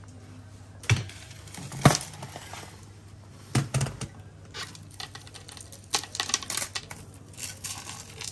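Small goods being handled and set down on a shop counter: irregular sharp clicks and clatters with some rustling, loudest about two seconds in, over a steady low hum.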